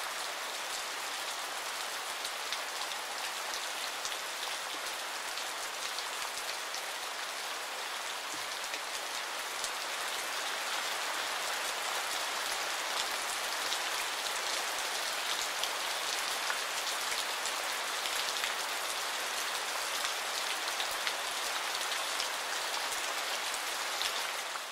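Steady rain falling on wet ground and leaves, with the hits of single drops heard through the hiss.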